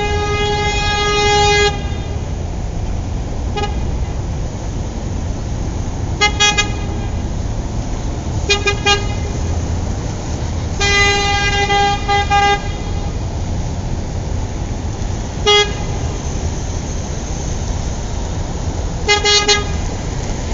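Car horn honking in irregular blasts, one steady pitch each time. There is a long blast at the start and another about eleven seconds in, with single short toots and quick runs of rapid toots in between. A steady low rumble runs underneath.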